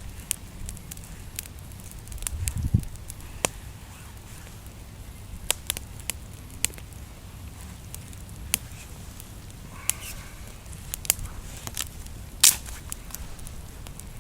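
Small campfire of grass and twigs crackling, with irregular sharp pops, over a low rumble. The rumble briefly swells about two and a half seconds in.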